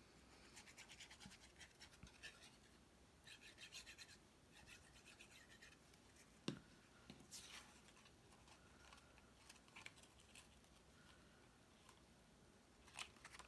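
Faint scratching and rubbing of cardstock as a paper cross is handled and pressed onto a card, in short bouts of quick strokes, with a single light tap about six and a half seconds in and another near the end.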